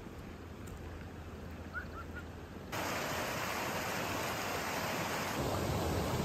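Quiet outdoor background with a few faint short chirps, then, from about a third of the way in, the steady rushing of a shallow rocky stream.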